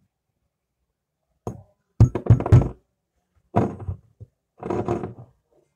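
Glass soda bottle knocking and rattling against a tabletop as it is handled, in several short bursts of knocks, the loudest about two seconds in.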